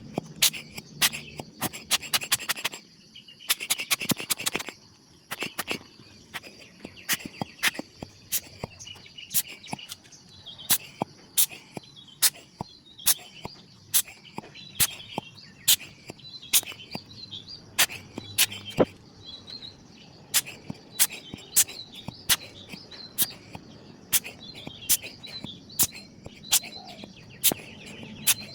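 Birds chirping over a steady high hum, with sharp clicks about once or twice a second throughout and a short rush of noise about four seconds in.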